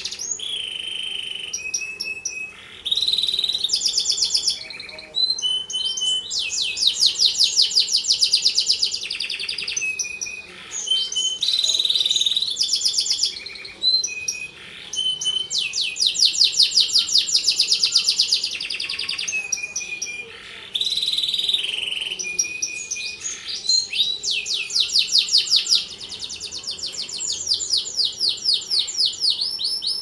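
Domestic canary singing a long, nearly unbroken song of fast trills and rolls, switching to a new phrase every few seconds with only brief pauses.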